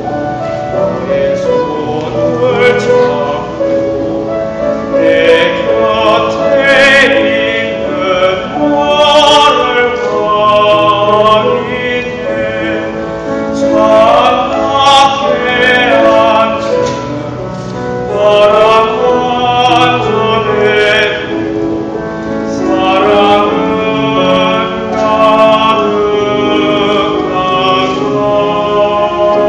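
A teenage boy sings a Korean ballad in a classical, operatic style, holding notes with vibrato. A youth orchestra of strings and winds accompanies him.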